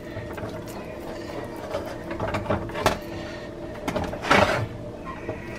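Hands patting, pressing and smoothing raw ground-turkey meatloaf mix in a glass baking dish, with small clicks and rubs of fingers and the dish against the glass, and one louder brief scrape about four and a half seconds in. A steady low hum runs underneath.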